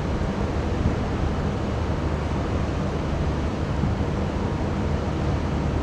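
Steady low drone of a push tug's diesel engines driving a loaded barge convoy, with a constant hum of low tones under a noisy wash.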